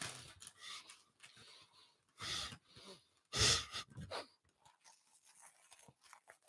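A man breathing out hard into a close microphone in a few short breathy huffs, the strongest about two and three and a half seconds in, with faint mouth clicks between them.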